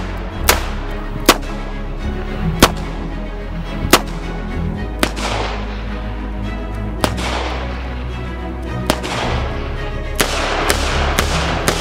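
Smith & Wesson Model 10 .38 Special revolver firing single shots, about eleven sharp cracks spaced a second or two apart and coming quicker near the end, over background music.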